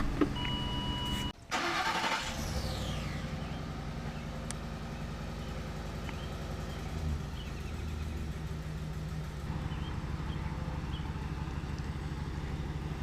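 Ford 5.4 Triton V8 idling steadily just after a timing chain set was installed, running smooth. A brief electronic beep sounds near the start.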